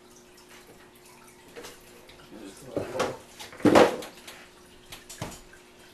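Handling noises from a small netbook being lifted and moved over a desk: irregular rustles and knocks, the loudest a little past halfway, then a short sharp click about five seconds in, over a faint steady hum.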